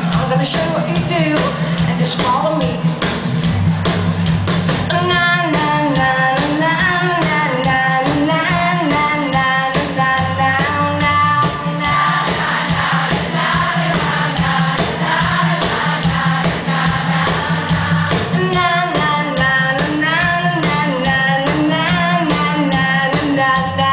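Live rock band playing loudly, with a sung vocal melody over a steady drum beat and a sustained bass line.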